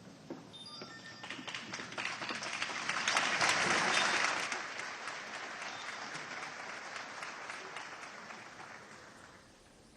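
Audience applauding, swelling to its loudest a few seconds in and then dying away toward the end.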